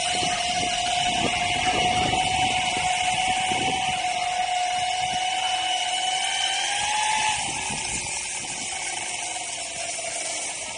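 Ecomobl ET electric skateboard's motors whining steadily, over wind buffeting the microphone and tyre noise on wet pavement. About seven seconds in the whine rises slightly, then drops and the sound gets quieter.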